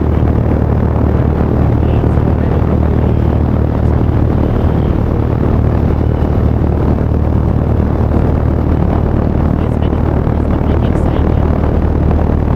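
Outdoor unit of a Midea split air conditioner running steadily: fan and compressor giving a loud, constant low hum with a rushing noise over it. The unit is running normally after more than six months unused.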